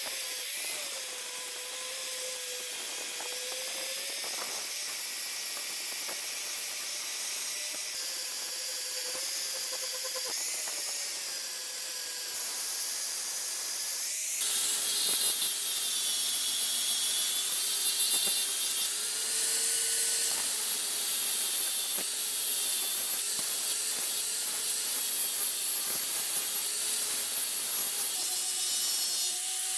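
Electric angle grinder with a sanding disc running and grinding rust off a steel hatchet head: a steady motor whine under a hissing grind, the whine's pitch drifting a little as the disc is pressed on. About halfway through the sound changes abruptly to a louder grind with more high hiss.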